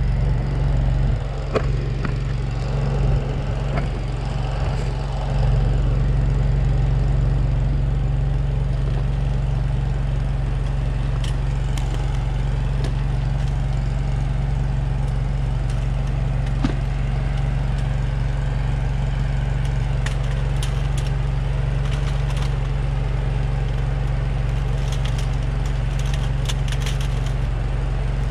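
Excavator engine idling steadily with a low, even hum, while stiff plastic spiral hose wrap is worked around hydraulic hoses, giving a few clicks and short scratchy rustles now and then.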